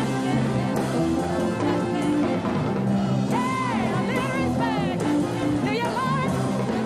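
Upbeat pop music with a steady beat, and a singing voice that slides between notes partway through.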